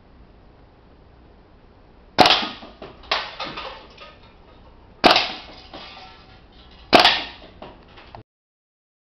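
WE gas-blowback open-bolt airsoft gun firing: three loud sharp shots about two seconds apart, with a quieter report between the first two, each trailing off in ringing echo. The sound cuts off suddenly near the end.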